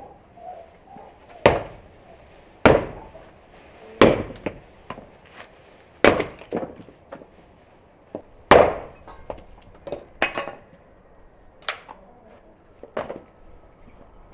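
Pieces of firewood and old planks thrown down onto a heap one after another, each landing with a sharp wooden knock, some followed by a short clatter, about every one to two seconds.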